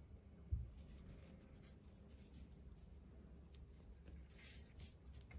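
Faint rustling and scratching of paper yarn being worked with a crochet hook, with a soft low thump about half a second in.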